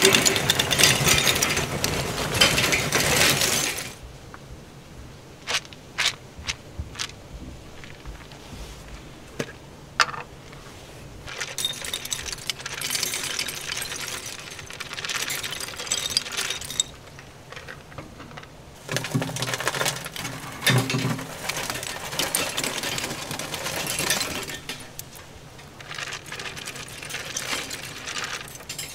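Lumps of charcoal clattering loudly into a stainless-steel wire charcoal basket for the first few seconds, then scattered single clicks. After that come several bursts of wood smoking pellets pattering down onto the charcoal.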